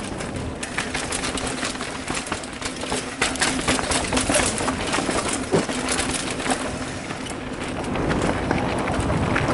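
Mountain bike rolling fast down a rocky dirt trail: steady tyre noise on dirt, with rapid clattering and rattling of the bike over rocks and roots throughout.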